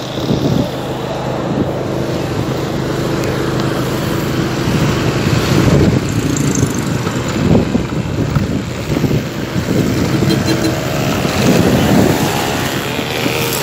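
Motorcycle running at road speed, heard from on the bike, a steady engine hum under rushing wind noise on the microphone.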